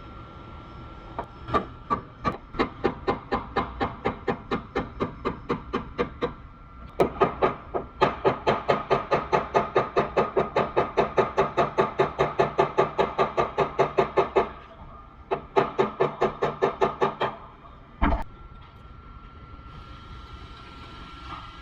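Body hammer tapping on the sheet-metal quarter panel of a BMW 440i to knock down crowns while the panel is held under pull by a pulling tower. The taps come in runs, quick and even at several a second, broken by short pauses, with one heavier thump near the end.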